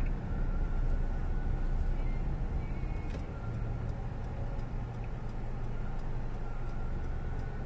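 Interior noise of a Honda car being driven: a steady low rumble of engine and road noise heard inside the cabin.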